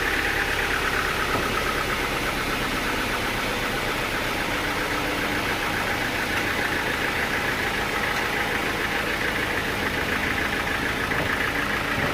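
Sawmill machinery running steadily at a constant pace, with a fast even pulsing and no change in load.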